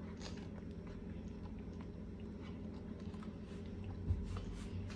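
Faint scattered clicks and light handling noises over a steady low hum, with a soft knock about four seconds in.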